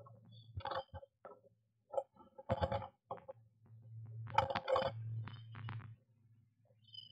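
A small tit's claws scrabbling and tapping on the wooden nest-box wall and entrance hole, in several bursts of scratchy clicks as it clings and climbs out. A steady low hum runs underneath.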